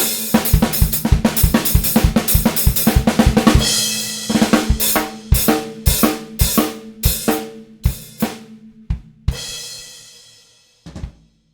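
A drum kit with a vintage Japanese stencil snare drum (a 14x5 Rogers copy) is played raw and unprocessed. It starts as a busy pattern of snare, bass drum, hi-hat and cymbals. This thins into separate, spaced hits, and a cymbal rings out about nine seconds in. One short final hit comes near the end, and then the playing stops.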